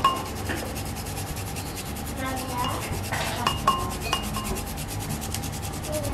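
Garlic being grated on a hand grater: rapid, even rasping strokes, with a few short clinks along the way.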